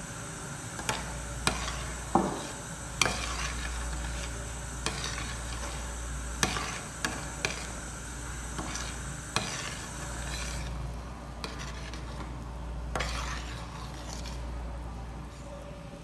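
Metal spoon stirring a pot of boiling chicken papaitan broth, clinking sharply against the steel pot about ten times, mostly in the first ten seconds. The clinks sit over a steady hiss from the boiling soup that thins out after about ten seconds.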